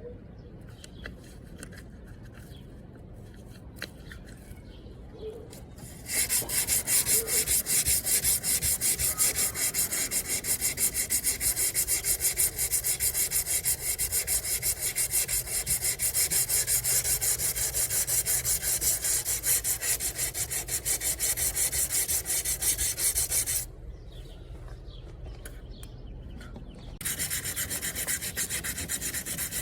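Sanding on a car's rear fender body panel: a steady, dense rasping starts about six seconds in, stops for about three seconds near the end, then resumes a little quieter.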